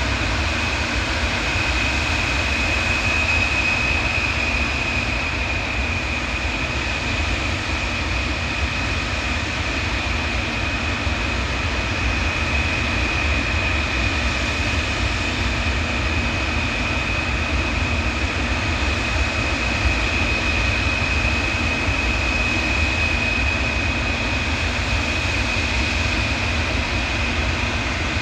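Antonov aircraft's engines running steadily and loudly: a constant high whine over a deep rumble, with no change in pitch or level.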